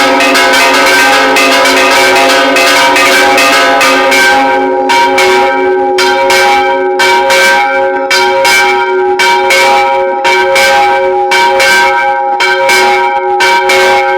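Church bells pealing: several bells struck rapidly and loudly, their tones overlapping and ringing on. The strikes come densely at first, then about four seconds in fall into a more distinct run of a few strikes a second.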